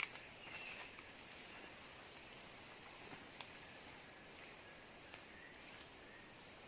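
Faint forest ambience: a steady hiss of insects, with a few soft clicks near the start and one about halfway through.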